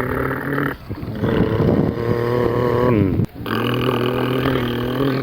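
Three long, steady low-pitched animal calls, the middle one dropping in pitch at its end.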